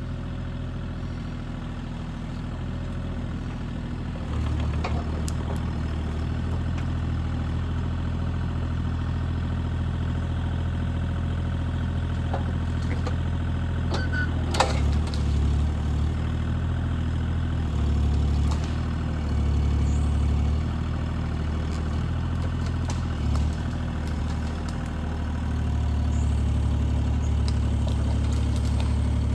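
Bobcat E35 mini excavator's diesel engine running steadily, its low note stepping up and down several times as it takes load. One sharp click about halfway through.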